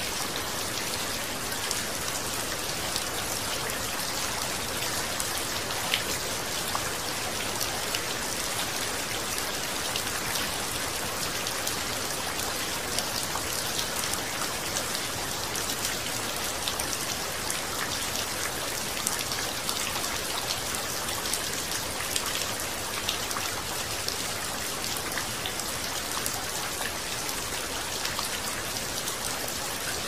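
Steady rain falling on leaves: a constant hiss with many small, scattered drop ticks.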